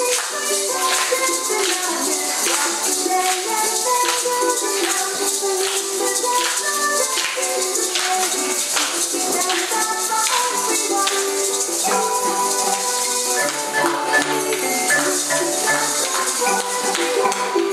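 Upbeat samba music with a shaker and rattle rhythm keeping a steady beat under a bright melody.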